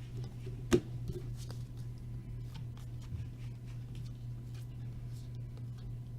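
Trading cards being handled and slid against each other, with one sharp tap less than a second in and faint rustles and ticks after it, over a steady low hum.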